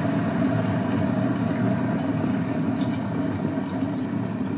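Glass electric kettle at a rolling boil: a steady, low rumble of boiling water.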